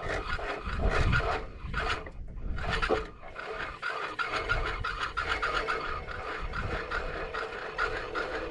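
Steel winch cable paying out from a Smittybilt winch drum in free spool as it is pulled by hand: a continuous rasping, rubbing scrape of cable over the drum and fairlead.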